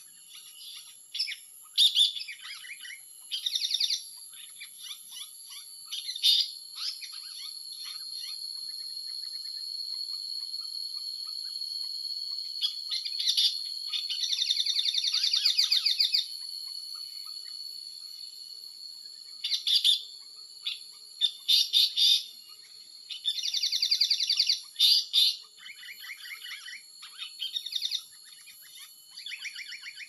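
Asian paradise flycatcher calls, the lure sound used to draw the bird in: bursts of fast, harsh chattering notes every few seconds, the longest and loudest about halfway through. A steady high insect drone runs underneath and swells in the middle.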